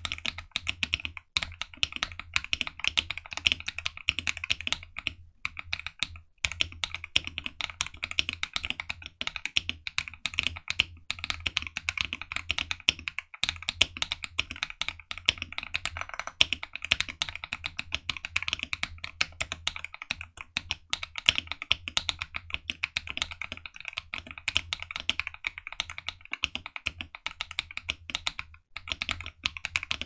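Continuous typing on a stock KBD67 Lite R3 mechanical keyboard with KFA N2O linear switches and kfaPBT keycaps: a dense, even run of keystroke clacks with a few momentary breaks. A faint steady low hum sits underneath.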